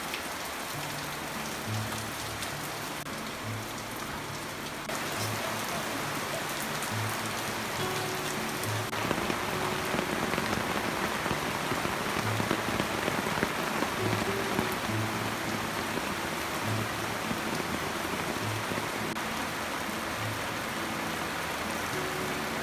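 Steady rain falling on leaves and wet ground, growing heavier about five seconds in. A soft, slow melody of low notes plays underneath.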